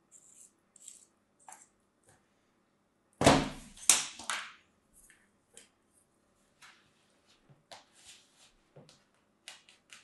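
Kinetic sand being scraped and crumbled by hand and with a small blade, in short soft hissing scrapes. A little over three seconds in comes a loud thump followed by two more knocks, plastic molds knocking against the plastic tray.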